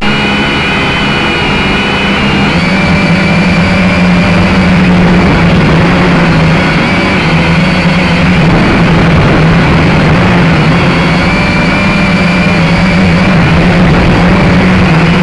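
Syma X5C-1 quadcopter's motors and propellers whining steadily in flight, the pitch shifting slightly a few times as the throttle changes, over rough wind noise on the microphone.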